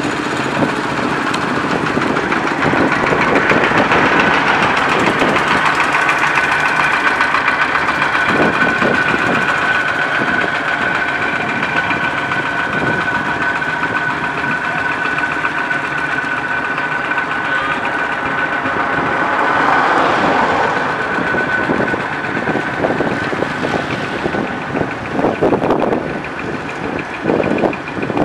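Engines of small Thai-built farm tractors running steadily as they drive along a road, with a steady high whine over the engine note. The sound swells about two-thirds of the way through and turns choppier and uneven near the end.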